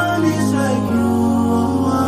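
Background music: a slow melody of long held notes that slide from one pitch to the next.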